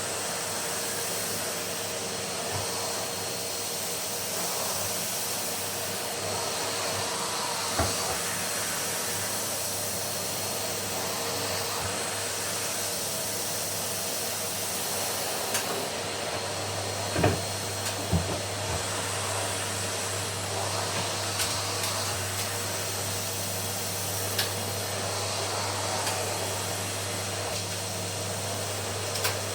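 Numatic cylinder vacuum cleaner running steadily with a constant hum. There are a few short knocks, the loudest about 17 seconds in.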